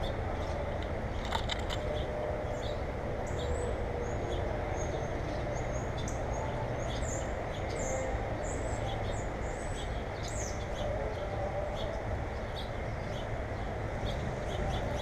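Small birds chirping, with a run of short high slurred calls through the middle, over a steady low rumble.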